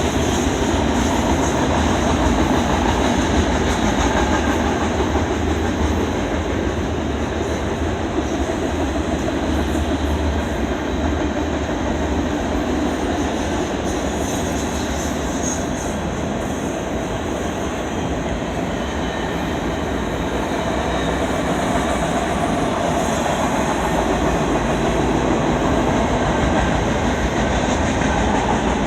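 CN intermodal freight train rolling past, a steady loud rumble and rattle of steel wheels on the rails.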